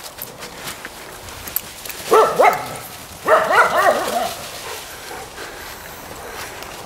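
A dog barking: two barks about two seconds in, then a quicker string of barks a second later.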